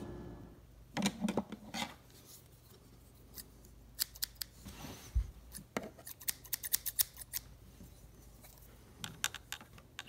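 Scissors snipping at a plastic wire protector sleeve, the blades clicking shut several times. There are a few snips about a second in, a quick run of them in the middle and a couple more near the end.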